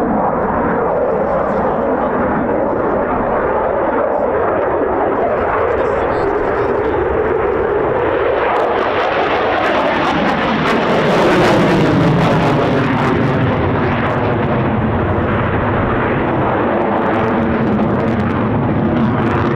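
Belgian Air Force F-16 Fighting Falcon's single F100 jet engine running loud and steady in display flight. The noise swells to its loudest and harshest a little past halfway, with its pitch sweeping as the jet goes by.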